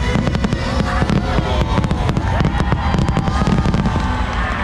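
A dense fireworks barrage: many rapid bangs and crackles in quick succession, over the show's loud music soundtrack.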